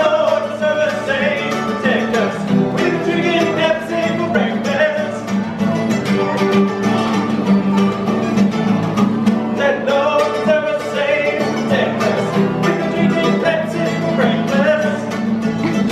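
Live bluegrass song: acoustic guitar and mandolin strummed together, with two men singing.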